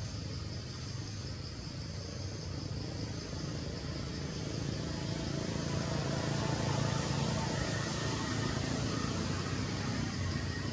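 A motor vehicle's engine running steadily as a low hum, slowly getting louder toward the middle and easing off a little near the end.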